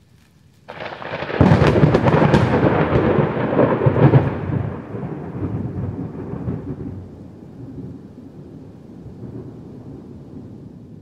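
A sudden crack and loud boom about a second in, then a long rolling rumble that slowly dies away.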